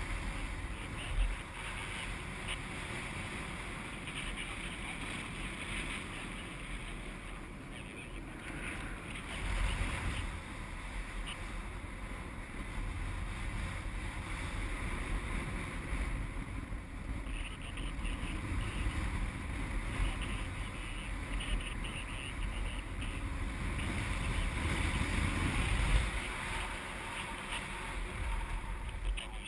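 Airflow buffeting a GoPro HD Hero 960 camera in flight under a paraglider: a steady wind rush with a deep rumble that swells and eases, strongest near the end.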